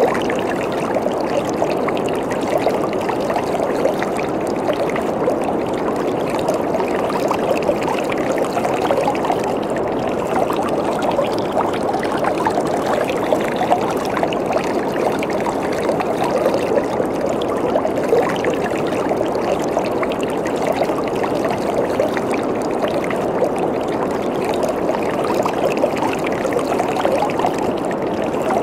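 Waterfall: water falling and splashing steadily, a constant rushing hiss strongest in the mid range.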